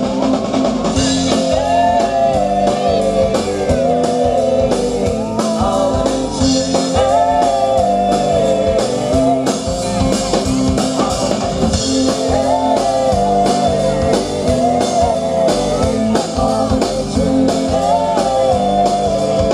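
Live rock-and-roll band playing a Christmas number on electric guitars and a drum kit, with a steady beat and a wavering melody line on top.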